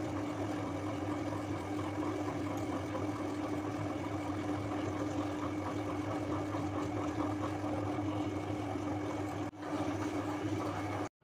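Steady machine-like hum with a fine crackle of thick tomato chutney bubbling in a pan; the sound breaks off briefly about nine and a half seconds in and again just before the end.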